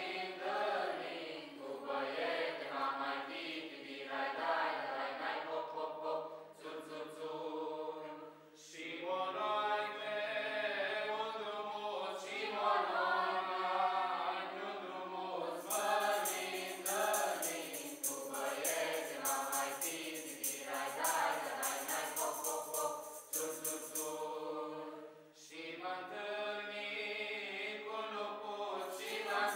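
A small mixed choir of women and men singing a Romanian Christmas carol (colind) without instruments, with short breaks between verses. A rhythmic high jingle sounds along with the singing from about halfway through, and again near the end.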